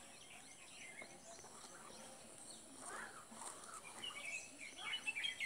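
Faint birds chirping in the background, a few short calls in the second half, over a light steady hiss.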